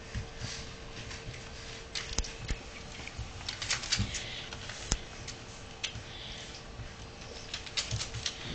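An adult dog and a puppy scuffling in play on a hardwood floor: irregular clicks and taps of claws and paws on the boards, with a few sharper knocks.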